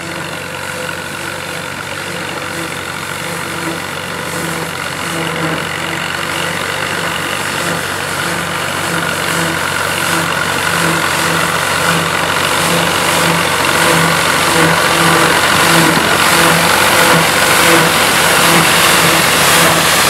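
Vintage tractor engine running steadily with a slow, even throb as it pulls a pull-type combine through wheat, the combine's threshing machinery adding a broad rattling hiss. The sound grows steadily louder as the machine draws nearer.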